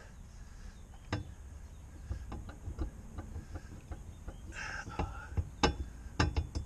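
Bronze boat propeller being wrenched by hand on its tapered shaft to break it loose: scattered metallic knocks and clunks as it shifts, with a brief louder scrape or squeak a little before the end.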